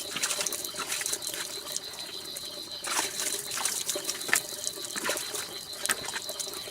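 Water trickling, with scattered small clicks and splashes.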